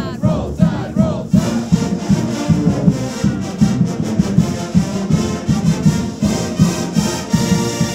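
Marching band playing, with brass carrying the tune over a steady drum beat.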